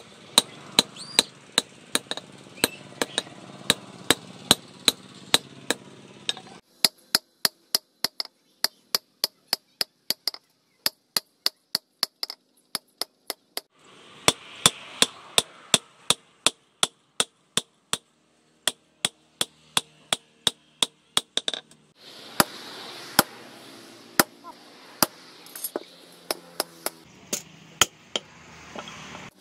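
Blacksmith's hand hammer striking hot bearing steel on a steel post anvil, shaping a knife blade. The blows are quick and even, about three a second, each with a metallic ring, and there are a few brief pauses.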